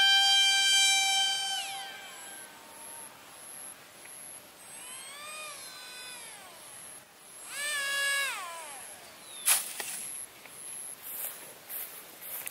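Small RC airplane's electric motor and propeller whining at a high, steady pitch that drops away about two seconds in, then two shorter whines that rise and fall in pitch as the throttle is opened and closed. About nine and a half seconds in there is a sharp knock, followed by a run of short crackling noises.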